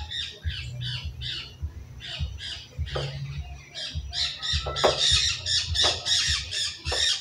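Birds calling in quick, repeated high chirps and squawks over a low steady rumble.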